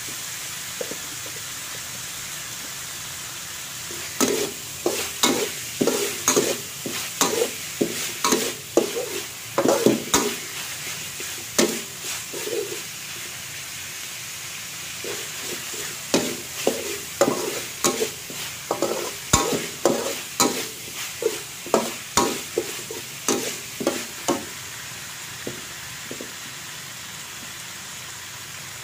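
Meat frying in a metal wok with a steady sizzle, while a metal wok spatula scrapes and knocks against the pan in quick strokes, about two a second. The stirring comes in two runs, with stretches of plain sizzling between them and near the end.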